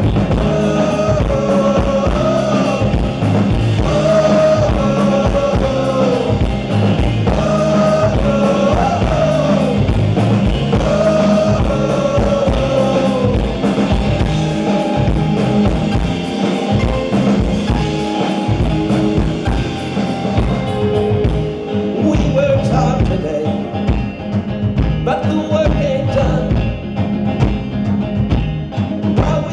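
Live band with banjo, upright bass, drum kit and electric guitar playing a song. A male voice sings a run of phrases through about the first half, then the instruments carry on with little or no singing.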